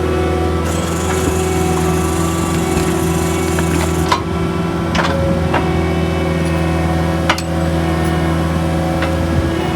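Engine of the machine driving a rock-coring auger bit running at a steady pitch, with a few sharp knocks: one about four seconds in, another a second later, and a louder one about seven seconds in.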